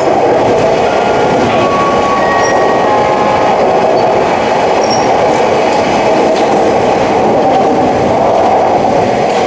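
Steady running noise heard inside the passenger car of a 485-series electric train travelling at speed: the rumble of wheels on rail.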